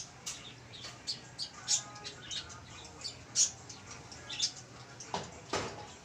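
Birds chirping: short, high chirps repeating at irregular intervals, with a few louder ones about three and a half seconds in and near the end.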